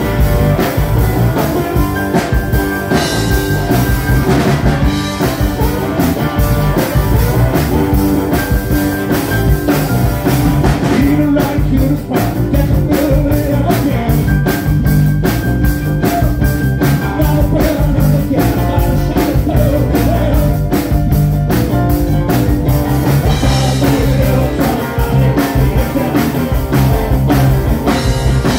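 A live rock band playing a song with a steady beat: drum kit, electric guitar, bass guitar and keyboard.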